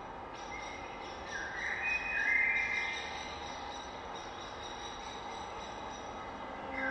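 Ambient electronic drone from a live electric violin and electronics set: a steady hissing, rumbling texture with faint sustained high tones. About two seconds in, a high tone slides upward and swells, then fades back into the drone.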